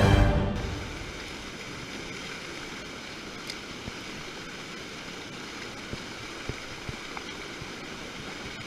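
Intro music cutting off in the first moment, then the steady rush of flowing river water, with a few faint clicks.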